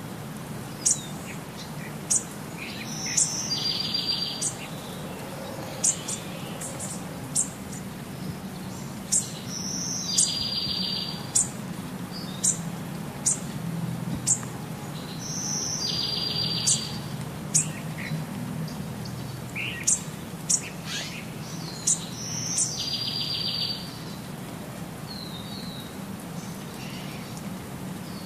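Bird calling: short sharp high chirps about once a second, with a short buzzy trill four times, every six or seven seconds.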